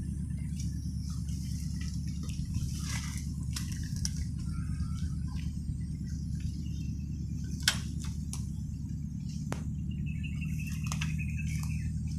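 Scattered rustling and sharp snaps of dry reed and grass stalks as someone pushes and steps through them, with one loud crack about two thirds of the way in. A steady low rumble runs underneath.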